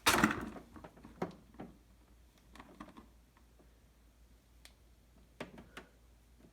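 A loud clunk right at the start, then scattered light clicks and taps, handling of equipment while the dehumidifier is being powered up; no motor or compressor is running.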